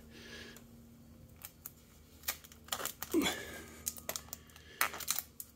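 Clear packing tape being wrapped by hand around a motorcycle's front fork tube, crackling and clicking irregularly as it pulls off the roll and sticks.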